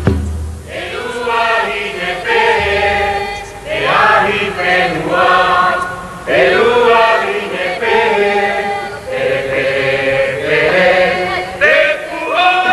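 A Tahitian group of voices chanting together, many singers at once in phrases of a few seconds, each phrase starting with a rise in pitch.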